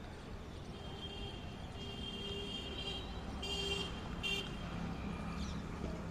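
Steady traffic noise, with a vehicle horn sounding in several short blasts in the first half.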